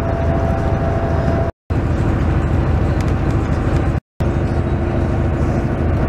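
Steady rumble of road and engine noise inside a moving coach bus, cut off twice by brief silences.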